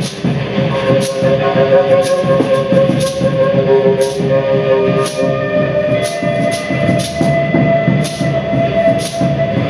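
Live instrumental music: several long held tones layered over one another, shifting pitch now and then, with sharp high strikes roughly once a second.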